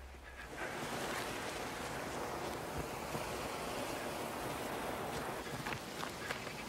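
Surf washing onto a sandy beach, a steady rush of waves that swells in about half a second in, with a few light footfalls near the end.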